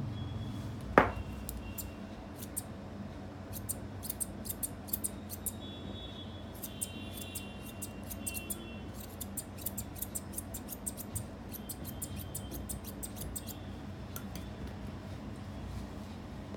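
Grooming scissors snipping through a Maltese's leg coat in runs of quick, crisp snips, with one loud knock about a second in and a steady low hum underneath.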